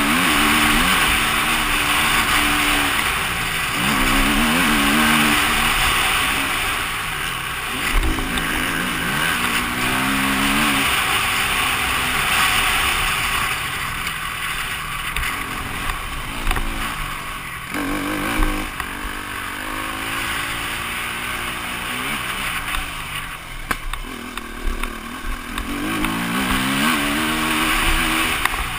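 KTM EXC-F 250's single-cylinder four-stroke engine revving hard, its pitch climbing and dropping again and again as the rider accelerates and shifts through the gears, under a heavy rushing hiss. A few sharp knocks stand out.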